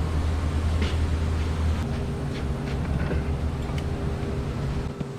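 A steady mechanical hum that shifts to a higher, steadier tone about two seconds in, with a few light clicks.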